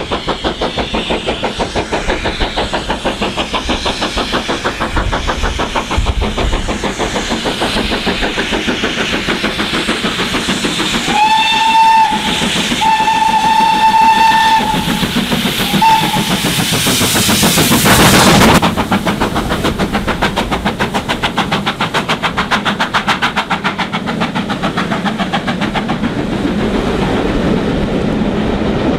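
GWR Castle Class four-cylinder 4-6-0 steam locomotive 5029 Nunney Castle working hard as it picks up speed with a passenger train, its exhaust beats coming in a fast, even rhythm. About eleven seconds in it sounds its whistle three times on one steady note: a short blast, a longer one and a brief toot. Around eighteen seconds the exhaust is loudest as the engine passes directly beneath, and the coaches then roll by with the beats going on.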